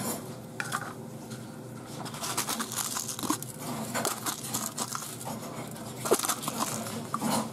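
A thin plastic food glove crinkles as a hand presses and packs a soft chopped tomato-and-cream mixture down into a small plastic cup, with a few light knocks, the sharpest about six seconds in.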